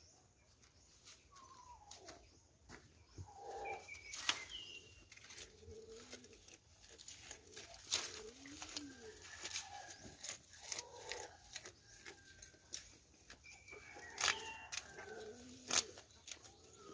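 Goats munching feed, heard as faint, irregular crunching clicks. Soft cooing calls and a few short higher gliding calls sound behind them.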